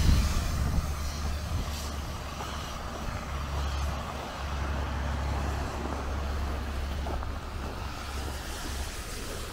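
Road traffic: a passing car fades away over the first second or two, leaving a steady low rumble of traffic.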